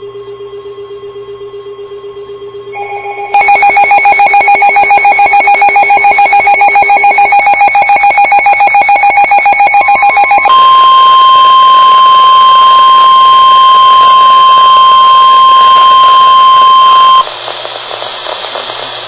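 Emergency alert tones. A rapidly pulsing electronic alarm tone steps up in pitch and loudness about three seconds in. About ten seconds in it gives way to a single steady long tone, the weather-radio warning alarm tone. That tone cuts off near the end, leaving a low hum.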